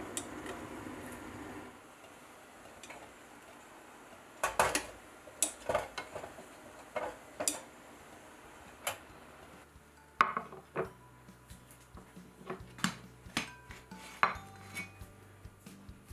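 Metal clanks and knocks from a hot sandwich maker being handled: lifted off the gas stove's grate, opened and the toast turned out. The knocks come irregularly, a dozen or so, starting about four seconds in, after a steady hiss that stops about two seconds in.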